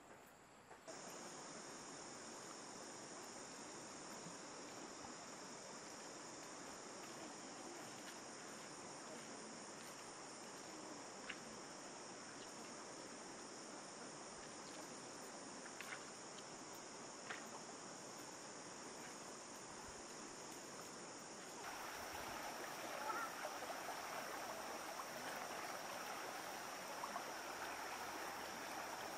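Steady high-pitched chorus of insects, with a few faint clicks. About two-thirds of the way through, the rush of flowing water comes in and carries on under the insects.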